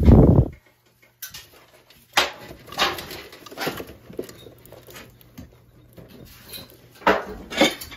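A heavy thump, then a brief gap, then a scattered series of short sharp clicks and knocks, two of them close together near the end.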